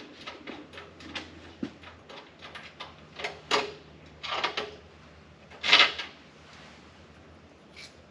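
Small metal parts and hand tools being handled while an engine is stripped: a run of light clicks and clinks, with a few louder metallic rattles and scrapes around the middle, the loudest about six seconds in.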